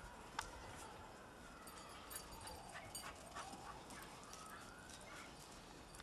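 Faint steps of dogs' paws crunching in snow, with scattered clicks, the sharpest about half a second in. Under them runs a faint, smooth wailing tone that slowly falls and then rises again in pitch.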